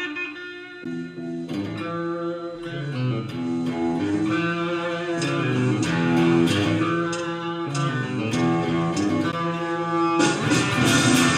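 Live blues-rock band: electric guitar and bass guitar playing a run of held, pitched notes. About ten seconds in, the drums and cymbals crash in.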